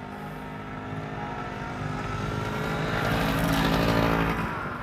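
A motor vehicle passing close by, its engine growing louder to a peak about three and a half seconds in and then fading away.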